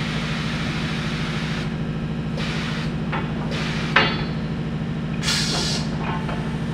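Pneumatic manipulator arm letting out air in hissing bursts as it lowers a square tube. A sharp metal click comes about four seconds in and a brief high hiss just after five seconds, over a steady low hum.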